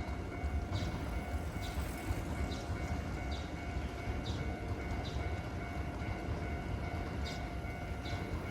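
Japanese level-crossing alarm ringing in a steady repeating beat, a little more than one strike a second, over the low rumble of a Kintetsu electric train at the crossing.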